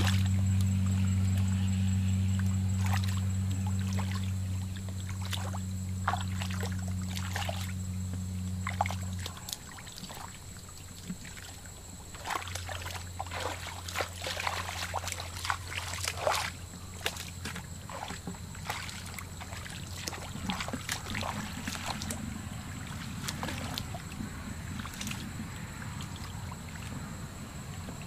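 Hands and legs splashing and sloshing in shallow muddy water, with many short splashes scattered through, most of them in the middle. Under it runs a steady low hum like a motor, loud for the first nine seconds, then gone for a moment and back faintly from about twelve seconds on.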